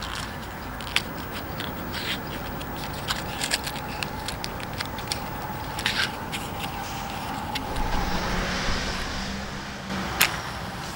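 Small paper matchbox being handled: light clicks and rustles as the box is slid open and a wooden match is taken out. Near the end, a match struck against the box's striker with one sharp scratch. A steady low rumble runs underneath.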